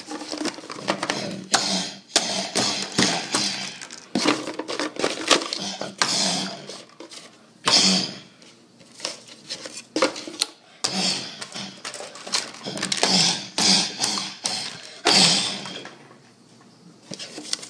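Plastic toy play-food pieces clattering and knocking together on a table as they are handled and moved about: many quick, irregular clicks and knocks.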